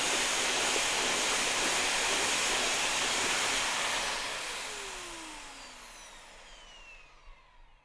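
Vacuum cleaner running with a high whine, then switched off about four seconds in, its motor winding down with falling whines until it has nearly stopped.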